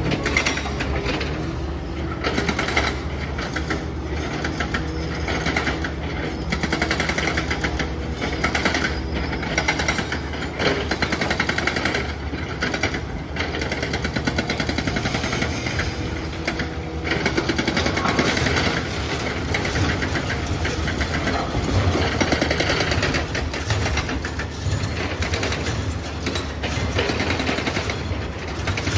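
Komatsu hydraulic excavators' diesel engines running, with irregular knocks, clanks and crashes as the machines break up a building.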